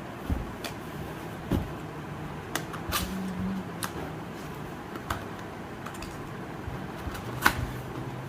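Scattered light clicks and knocks of objects being handled, at irregular intervals, over a steady low hum. The sharpest click comes near the end.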